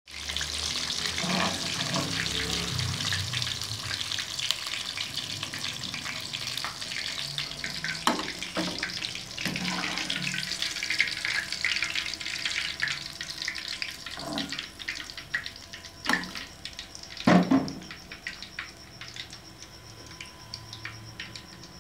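Breaded chicken piece deep-frying in hot oil in a wok: a steady crackling sizzle that thins out over the second half. A few knocks of a utensil or plate come through it, the loudest about three-quarters of the way in.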